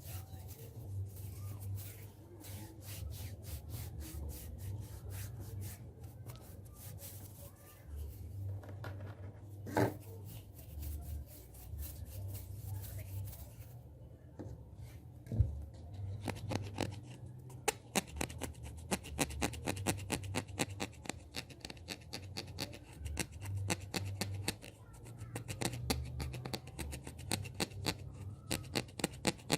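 Hand sounds close to the microphone: palms rubbing and fingers scratching, turning about halfway through into a fast run of crisp clicks and taps.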